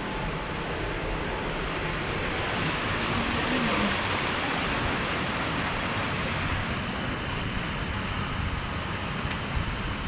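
Steady outdoor rush of wind and sea surf, with uneven low buffeting of wind on the microphone.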